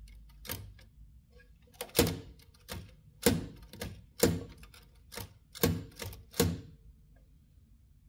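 Underwood Elliott-Fisher book typewriter being typed on: about ten separate key strokes at an uneven pace, each typebar striking sharply with a metallic clack, stopping about two-thirds of the way through. This is normal typing, printing the lowercase characters.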